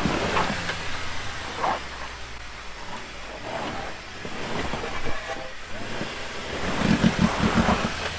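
Lifted Jeep Wrangler's engine revving in surges while its tires spin in mud, loudest near the end.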